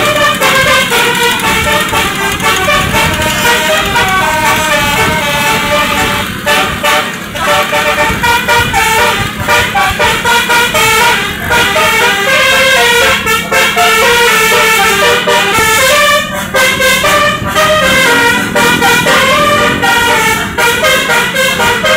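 Telolet basuri bus air horn playing a fast tune of short, stepped notes without a break.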